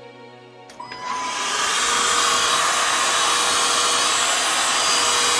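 A click, then a steady rushing noise like a fan or blower that starts about a second in and holds evenly, as the last of the backing music fades out.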